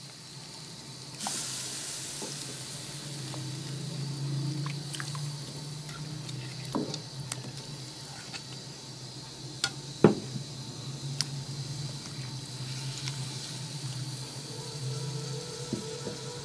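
Raw chicken pieces being put into water in a kadai (wok): soft splashes and scattered knocks of meat and bone against the metal pan, the sharpest about ten seconds in. Under them runs a steady hiss that begins about a second in.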